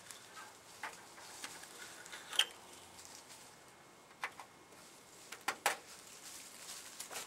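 A few light, separate clicks and taps of a screwdriver on a truck fender's fasteners, the loudest about two and a half seconds in and a quick pair of clicks near the end.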